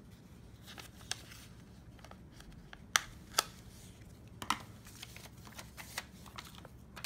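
Small clicks and taps of a marker and paper sticky notes being handled on a desk: a few sharp clicks, two of them close together about three seconds in, over a faint room hum.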